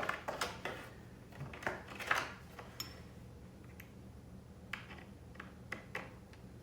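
Light clicks, taps and brief scrapes of small metal hardware being handled as mounting screws and nuts are worked into a skateboard truck. The sounds are irregular, with a couple of short scraping bursts in the first two seconds and then scattered single clicks.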